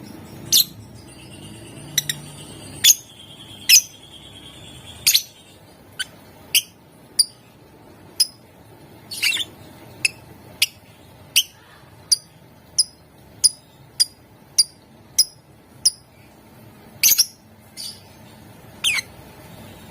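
Lovebird calling with short, sharp, high-pitched chirps, a few louder and longer, and an evenly spaced run of quick chirps well under a second apart through the middle.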